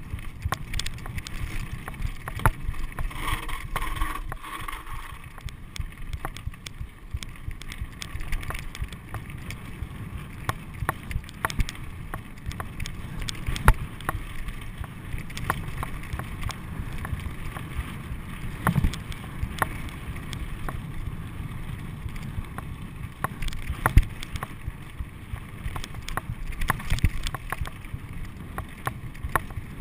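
Mountain bike rolling over a rocky dirt trail: a steady rumble of knobby tyres on gravel with frequent clatter and knocks from the bike over rocks and bumps. Wind noise on the microphone runs under it.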